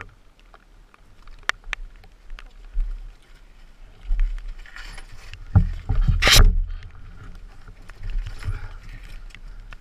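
Scattered knocks, scuffs and scrapes as a dirt bike is hauled by hand over rocks, with a louder noisy rush about six seconds in and a low rumble on the microphone.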